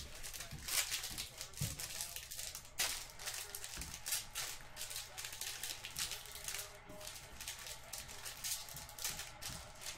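Trading card packs being torn open and the cards slid and shuffled through the hands: a quick, irregular run of short paper-and-foil swishes and crinkles.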